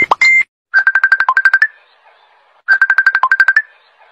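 Electronic ringtone-style melody: a fast run of short beeping notes, mostly on one pitch with one lower note and a higher note at the end. It plays twice, about two seconds apart. A different repeating beep cuts off just before the first run.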